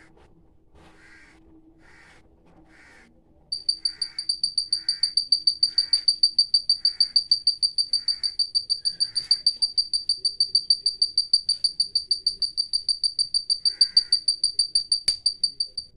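Piezo buzzer of a homemade buzz-wire game beeping rapidly and high-pitched, about five beeps a second, starting about three and a half seconds in and then keeping on steadily: the wire loop is touching the wire and closing the circuit. A sharp click comes near the end.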